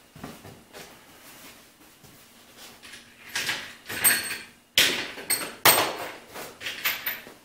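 Metal hand tools and sockets clinking and clattering as they are rummaged through, several sharp clanks with brief metallic rings starting about three seconds in.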